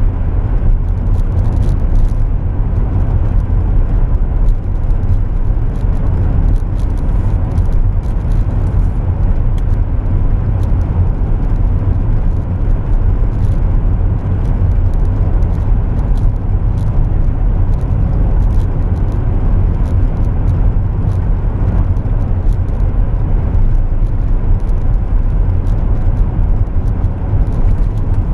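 Steady low rumble of a car at highway speed, heard inside the cabin: tyre, engine and wind noise.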